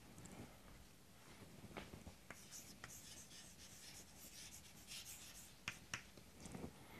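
Chalk writing on a chalkboard: faint scratching strokes with a few light taps as a word is written by hand.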